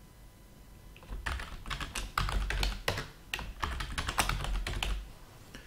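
Typing on a computer keyboard: a quick run of keystrokes that starts about a second in and stops shortly before the end.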